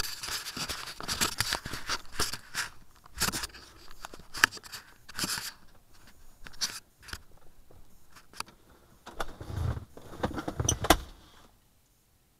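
Handling noise from a dashcam being adjusted on its windscreen mount: rustling scrapes, clicks and a few dull knocks close to the microphone. The sounds fade out near the end.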